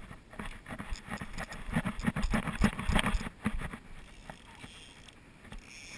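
Scuffs and knocks of a person stepping and shifting on shoreline rocks, a dense run of them over the first four seconds, then quieter.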